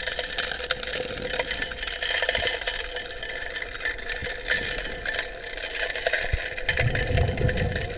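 Gold dredge's engine and pump running steadily, heard underwater, with frequent clicks of gravel and stones being sucked into the suction nozzle. A low rumbling surge comes near the end.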